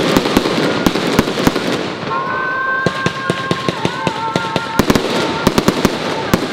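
Fireworks display going off: a dense run of sharp cracks and bangs throughout, with high whistling tones of rising shells from about two seconds in until about five seconds in.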